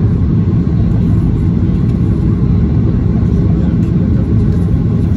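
Steady low cabin rumble inside a Boeing 737-800 in flight on descent: its CFM56-7B engines and the airflow over the airframe, heard from a window seat level with the wing.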